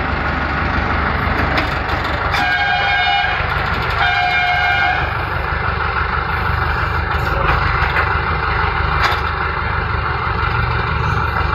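Two horn blasts, each about a second long, a little after two seconds in and again at four seconds, over a steady low engine rumble, with a few sharp clicks.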